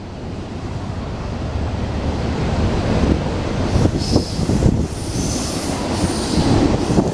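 Slow, heavy intermodal freight train rolling past, its rumble building steadily. From about four seconds in, brief high wheel squeals and clicks join it.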